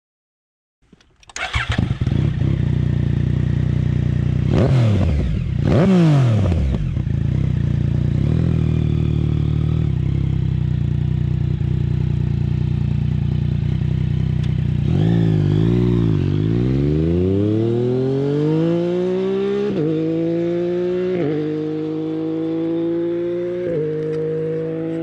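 Yamaha MT-09 three-cylinder engine breathing through a Roadsitalia titanium full exhaust system. It starts about a second in, is blipped twice, and settles to idle. It then pulls away, rising in pitch with several upshifts.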